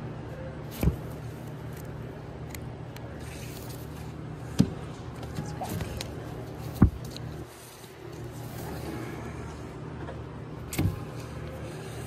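Vinyl LP records being flipped through in a crate: four short knocks as sleeves drop against the records in front, over a steady low background hum.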